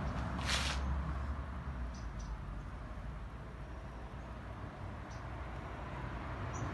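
A few faint, short, high-pitched bird chirps over a steady low outdoor rumble, with a brief hiss about half a second in.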